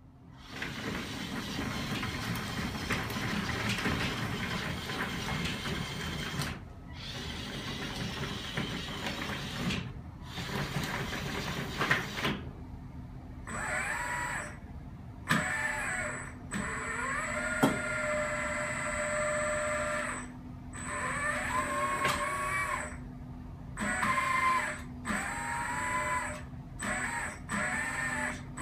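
A 1/14 metal RC hydraulic excavator's pump and valves run as the boom, arm and bucket move. At first the sound is a dense, steady mechanical noise. From about halfway it becomes a whine that rises and falls in pitch with the load, cutting off and restarting several times.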